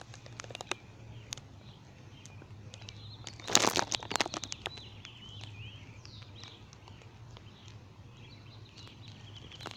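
Cayuga and Welsh Harlequin ducklings peeping softly throughout, with a short burst of clicks and rustles about three and a half seconds in.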